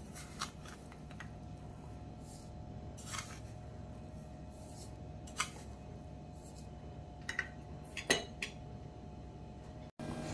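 Scattered light clicks and taps of small ceramic bowls against a plastic blender jug as flour and sugar are tipped in, the loudest about eight seconds in, over a faint steady hum.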